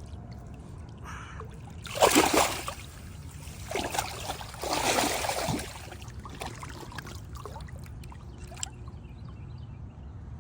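Water splashing as a carp of about 13 pounds is released by hand into the lake, in two main bursts about two and five seconds in, with a smaller splash between them.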